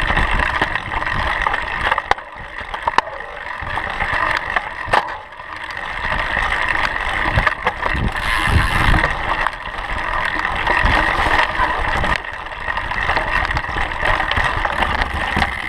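Mountain bike rolling along a dirt and leaf-covered singletrack trail: a steady rush of tyre noise and wind on the microphone, with the bike rattling and knocking sharply over bumps many times.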